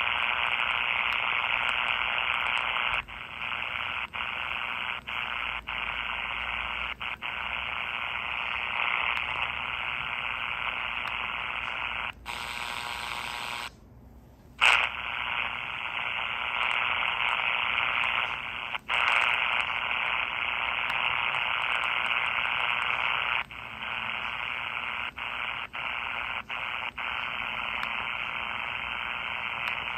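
Small 4732 miniature radio's speaker hissing with shortwave static, no station coming through. The hiss is broken by brief dropouts as it is tuned and goes nearly quiet for about a second midway, ending in a sharp click. It is a sign of weak reception on the shortwave bands.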